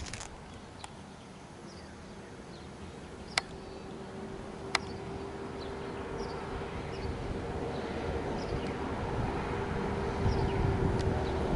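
A train approaching the level crossing: a low rumble and a steady engine hum build steadily louder. Birds chirp over it, and two sharp clicks come about a second and a half apart near the middle.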